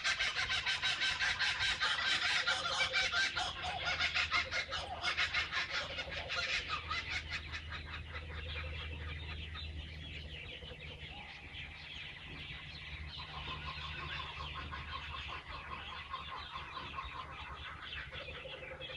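A family of laughing kookaburras calling together: rapid, repeated cackling laughs, loudest for about the first eight seconds, then going on as quieter calls.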